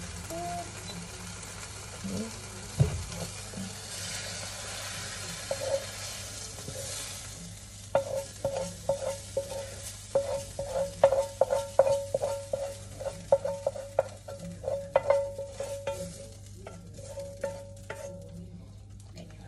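Instant noodles being scraped out of a hot frying pan onto a plate: a soft sizzle at first, then from about eight seconds in a run of quick taps and scrapes of a utensil against the pan, each making the pan ring briefly, thinning out near the end.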